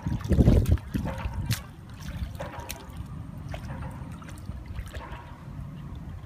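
Hands splashing and sloshing in shallow muddy water, a few louder splashes in the first second and a half, then quieter dabbling and trickling.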